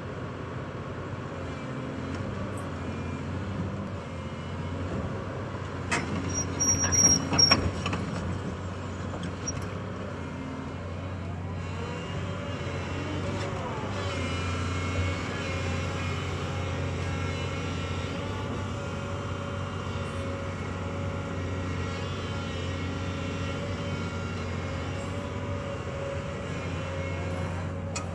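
2004 Volvo EC210BLC tracked excavator's six-cylinder diesel running steadily under load, with a whine that rises and falls as the upper structure swings and the boom and bucket move. A burst of loud knocks comes about six to eight seconds in.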